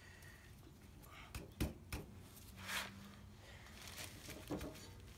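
A few sharp knocks and clinks of hand tools against the engine, working at a coolant neck that is stuck on, with a short scrape about halfway through.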